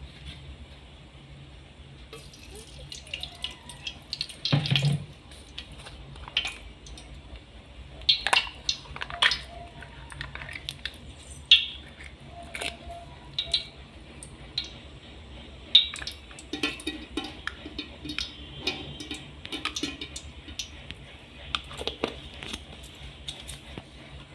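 Kitchen work sounds: scattered clicks, clinks and knocks of utensils and dishes at irregular intervals, with water running or dripping, over a steady low hum.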